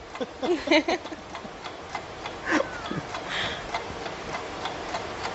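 A brief fragment of speech under a second in, then low, even background noise with a few faint clicks.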